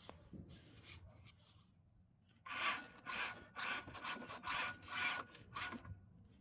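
Rhythmic rubbing or scraping strokes, about seven of them at roughly two a second, starting about two and a half seconds in.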